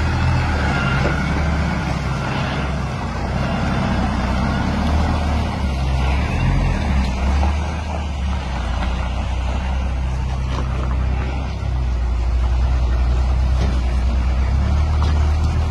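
Straight-piped 550 hp Volvo truck's straight-six diesel running with a deep, steady exhaust drone as the rig moves slowly past, getting louder about three-quarters of the way through.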